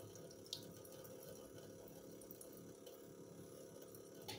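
Faint steady hum of a small water pump running, with quiet trickling of water flushing through a jar to rinse out ashes, and two faint drips, one about half a second in and one near the end.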